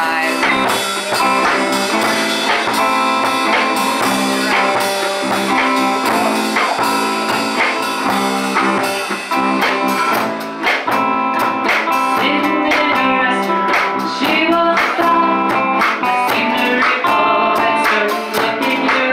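Live band playing: hollow-body electric guitar, bass guitar and drums, with a woman singing.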